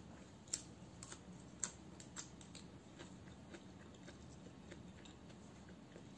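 Close-up chewing of fresh arugula leaves: a string of faint crisp clicks and crunches, two sharper ones within the first two seconds, then thinning out.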